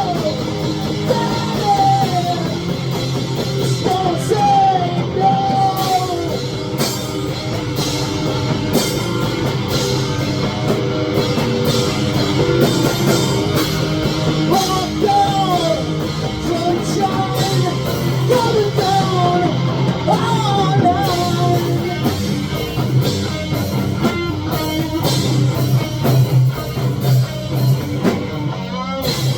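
Rock song with a sung lead vocal over guitars and a drum kit, playing steadily.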